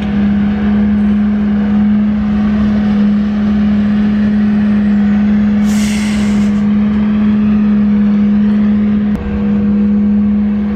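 A motor running steadily with a constant low hum, and a short burst of hiss about six seconds in.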